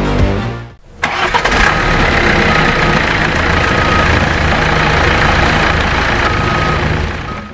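Zoomlion ZE215E crawler excavator's diesel engine running steadily after the music fades out about a second in, with a few short beeps repeating at uneven gaps.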